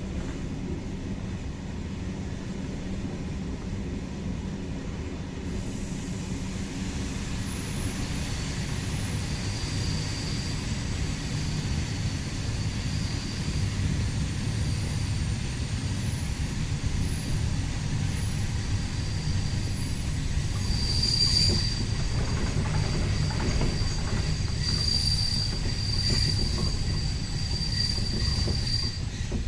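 InterCity train rolling on the rails with a steady low rumble. A thin, high steady wheel squeal sets in several seconds in and comes and goes, loudest about two-thirds of the way through and again near the end, as the wheels grind along curving track and switches.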